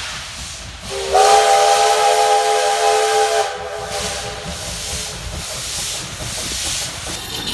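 Steam locomotive whistle blowing one long blast of about two and a half seconds, starting about a second in, a chord of several tones with a slight lift in pitch at its onset. Steam hiss and exhaust noise from the approaching engine run under and after it.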